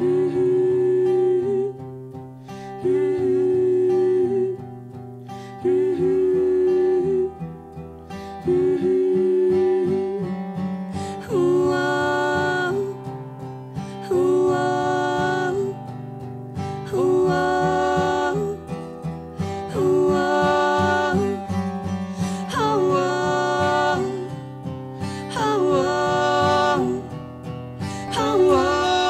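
Acoustic folk band playing: strummed acoustic guitar chords over bass notes. About a third of the way in, a louder held melody joins in repeated phrases of a second or two, with no sung words.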